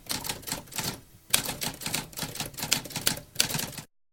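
Typewriter keys clacking in quick succession, with a short break about a second in before the typing resumes, then cutting off abruptly near the end.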